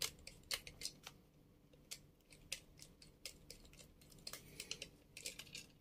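Precision screwdriver unscrewing the cover screws of an Artillery X1 direct-drive 3D printer hotend: faint, irregular light clicks of the bit in the screw heads, coming faster in a short run near the end.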